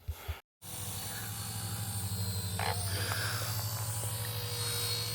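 Electric RC helicopter running: a steady motor whine and rotor buzz with a fast low pulsing, starting about half a second in after a short gap and rising slightly.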